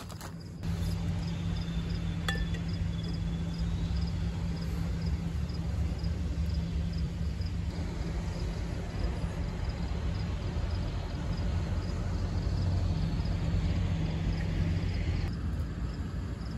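Steady low rumble of a vehicle engine running nearby, which swells about a second in and holds, with a faint high ticking about twice a second above it.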